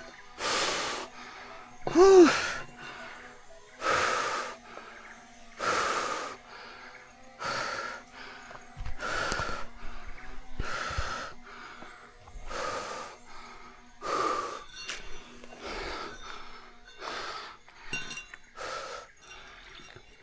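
A person breathing hard and rhythmically, one loud noisy breath about every one and a half to two seconds, as from strenuous climbing. A short pitched sound that rises and falls comes about two seconds in.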